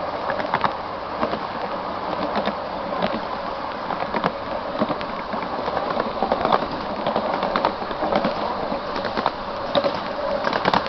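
Steam-hauled 7¼-inch-gauge miniature railway train running along its track, heard from an open passenger carriage: a steady rumble of wheels on rail with frequent irregular clicks and clacks.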